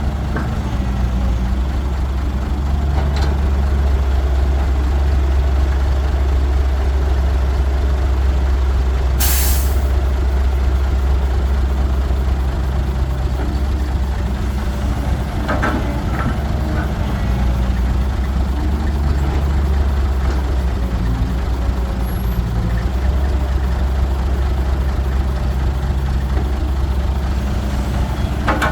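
Heavy diesel engines of a Caterpillar 312 excavator and a truck running steadily, the engine note shifting as the machine works. About nine seconds in comes one short, loud hiss of air, with a few faint knocks scattered through.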